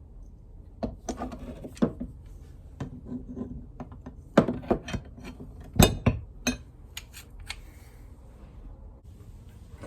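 Irregular metallic clinks and knocks of vise parts and hand tools being handled and fitted together during reassembly, with a few louder clanks a little past halfway.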